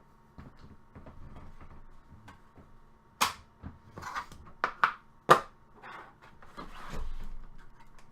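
Handling noise on a tabletop: rustling and shuffling with several sharp taps and knocks, the loudest a cluster of about five between about three and five and a half seconds in.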